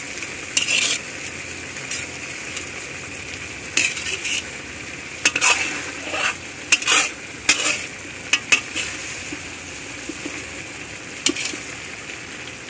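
Grated coconut frying in a large metal wok, a steady sizzle, while a metal spatula stirs it with about eight short, irregular scrapes and clinks against the pan.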